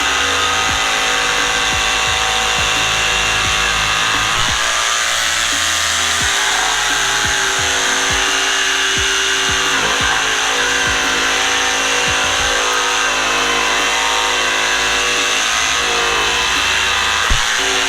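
FLEX 24V cordless jigsaw running steadily as it cuts through wood, with background music.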